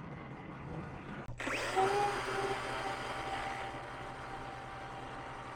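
Flap sander starts about a second in with a quick rising whine, then runs steadily with a high whine, sanding a cedar carving. Before it starts there is a quieter steady hum.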